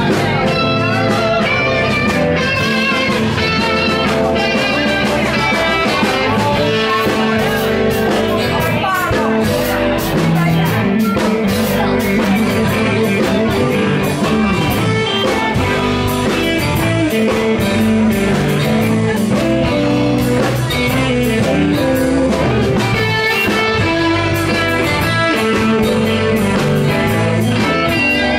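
A live band playing electric guitars, acoustic guitar and bass over a steady drum-kit beat.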